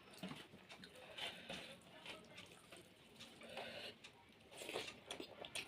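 Faint, scattered small clicks and soft eating noises, quiet between the louder clatter and crunching around it.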